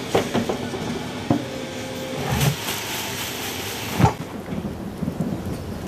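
Boxes knocking and thudding as they are handled on a hand truck, several separate knocks over a steady rumbling noise, the loudest thump about four seconds in.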